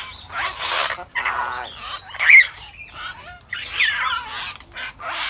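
Caged hill mynas calling: a run of short harsh squawks and whistles, several sliding in pitch, the loudest a little past two seconds in.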